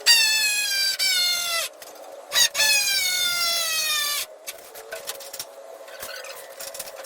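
Cordless drill-driver driving two screws into timber, each run lasting under two seconds, its motor whine dropping in pitch as the screw bites and the load rises.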